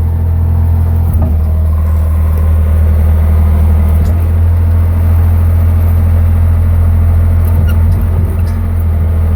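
2007 Bobcat S130 skid steer's diesel engine running steadily at idle, a low, even hum.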